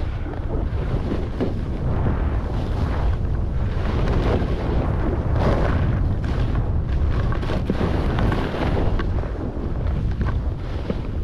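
Wind buffeting the microphone at skiing speed, with the hiss and scrape of skis on packed snow rising and falling through the turns.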